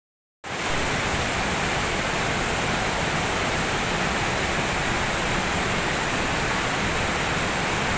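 Aliwagwag Falls, a wide curtain waterfall, pouring onto boulders and into a pool: a steady, unbroken rush of falling water that starts about half a second in.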